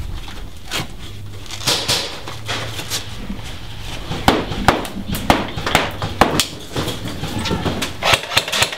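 Scattered sharp knocks and cracks in a room, about a dozen at uneven intervals and more frequent in the second half, over a steady low hum.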